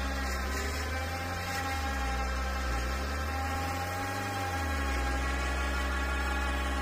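Rosomakha Extreme Plus quad bike running while its winch hauls it out of deep slush, a steady motor whine and engine hum. The pitch dips and rises between about one and five seconds in.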